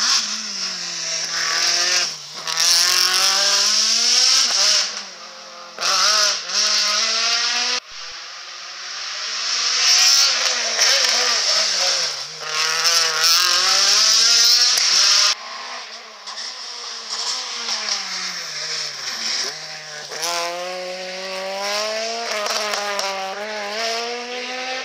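Rally car engines, one of them a Peugeot 106's, revving hard through tight hairpins: the pitch drops repeatedly as the cars brake and shift down, then climbs as they accelerate away. Tyre noise runs under the engines, and the sound breaks off sharply twice.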